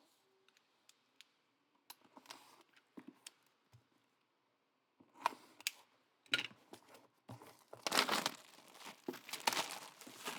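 Trading card packaging being torn open and crinkled: a few faint clicks and rustles at first, then louder tearing and crackling of the wrapper from about halfway, heaviest near the end.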